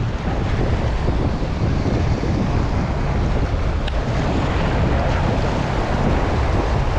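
Wind buffeting the microphone over the steady wash of small waves breaking against the jetty's rocks.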